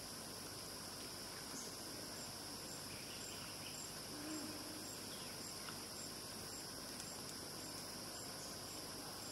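Steady high-pitched drone of forest insects, with a separate short chirp repeating about twice a second from about two seconds in.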